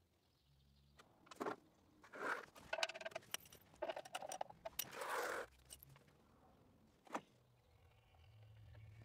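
Metal clinks, clicks and scrapes of a hand-held socket working a drain plug on the underside of a 1966 Citroën DS ID19. There is a close run of sharp clicks with some ringing, from about a second in to about five seconds in, then one more click later.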